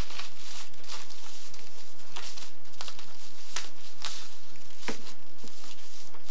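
Tissue paper rustling and crinkling in irregular bursts as hands unwrap and move it, with a few sharper crackles.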